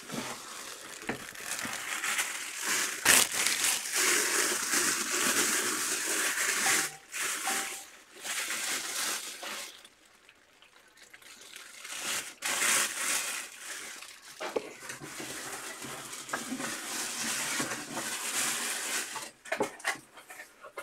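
Clear plastic bag crinkling as it is handled, in long rustling stretches with a short pause about ten seconds in and a few sharp clicks.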